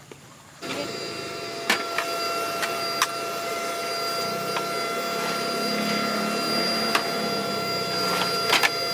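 A small motor-driven machine running steadily with a whine, switched on abruptly about half a second in, with several sharp clicks over it.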